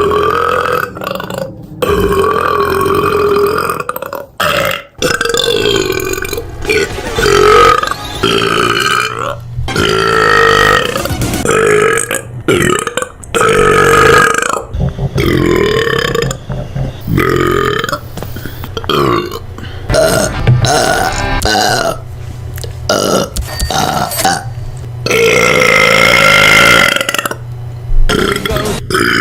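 A woman burping: a long series of deep, loud, drawn-out burps, one after another, each lasting a second or more, with short breaks between them.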